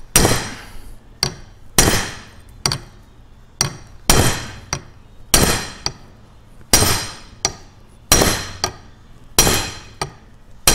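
Hammer blows on a punch set on top of the kingpin in the front axle and spindle of a 1947–54 Chevy/GMC truck, driving out the greased, stubborn kingpin. The blows are sharp and metallic, each ringing briefly, with a heavier strike about every second and a bit and lighter taps between.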